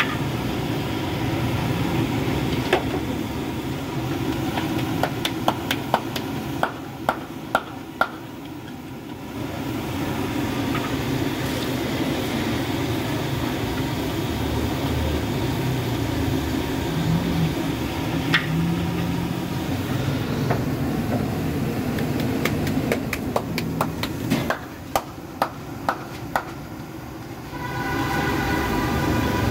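Puris deep-frying in a large karahi of hot oil over a gas burner: a steady sizzle and rushing burner noise, broken by two runs of sharp metal clicks from the long-handled slotted spoon against the wok, about a quarter of the way in and again near the end.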